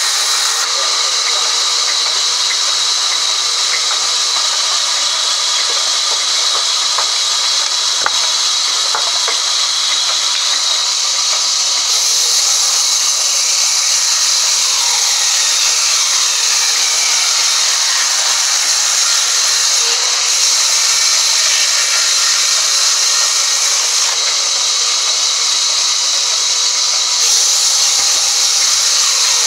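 Large vertical band saw ripping a squared timber block lengthwise: the blade makes a steady, loud hissing rasp as it cuts through the wood.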